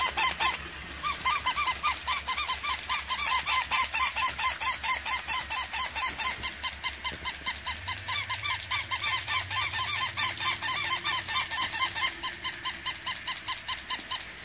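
Battery-operated plush walking puppy toys giving rapid, even, high-pitched electronic yaps from their small speakers, about five a second, breaking off briefly about half a second in.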